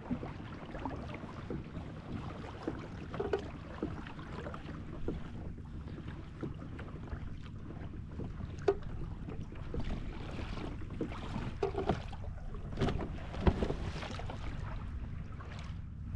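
Wind on the microphone and water lapping at a plastic fishing kayak's hull, with scattered light knocks and clicks; a few louder knocks come about thirteen seconds in.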